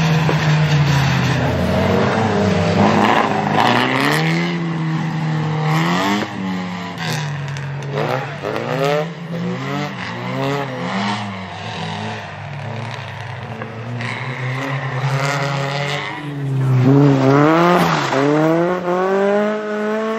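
Rally car engine revving hard, its pitch climbing and dropping back again and again as the driver accelerates, shifts and lifts off.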